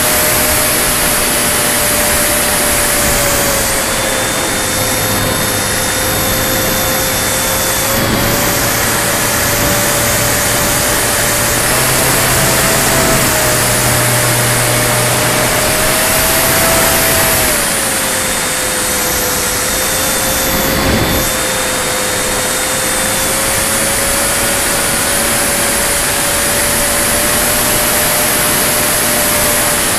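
Radio-controlled model Spitfire's motor and propeller running in flight, one steady droning tone whose pitch dips and rises a little several times, under a constant rush of wind over the wing-mounted camera.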